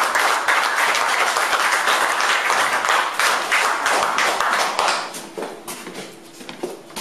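Audience applauding. It dies down about five seconds in, leaving a few scattered claps.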